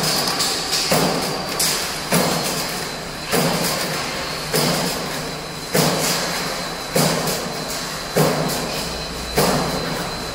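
Punch press of a strut roll forming line stroking about every 1.2 seconds, each stroke a sharp thump that fades away, as it punches holes in the steel strip. Under the strokes the roll forming machine runs with a steady mechanical hum.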